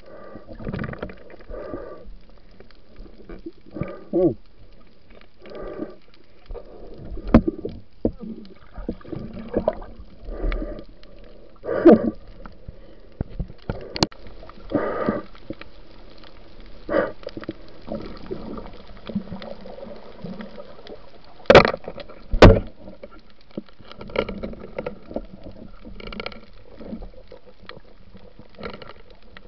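Water sloshing and gurgling in irregular bursts as a night spearfisher swims underwater, with two sharp knocks about a second apart about two-thirds of the way through.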